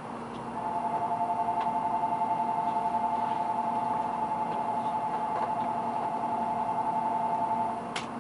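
Electronic departure bell on a Shinkansen platform ringing: a two-tone trill that rings for about seven seconds, the signal that the doors are about to close and the train will depart. A sharp click comes just after it stops.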